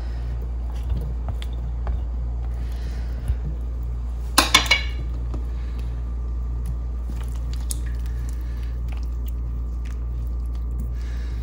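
Gatte being stirred into yogurt gravy in a non-stick pan with a silicone spatula: soft squelching and scraping, with a quick rattle of three sharp clinks against the pan about four and a half seconds in, over a steady low hum.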